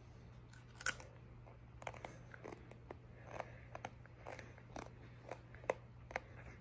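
Faint crunching of a chip being bitten and chewed with the mouth closed: a scatter of short, sharp crunches, irregular, about one or two a second.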